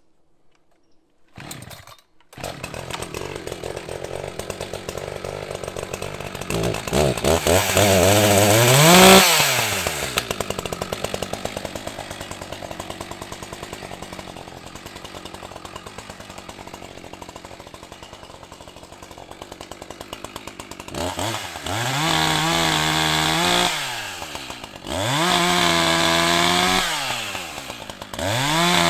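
ECHO CS-620P two-stroke chainsaw with a 20-inch bar. Its engine starts running about two seconds in and idles with a rapid popping beat. It is revved up to full throttle once and let back down, then throttled up three more times near the end.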